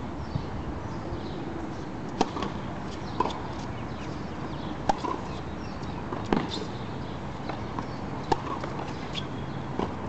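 Tennis ball struck by rackets and bouncing on a hard court during a rally: about six sharp knocks a second or two apart, over a steady background hiss.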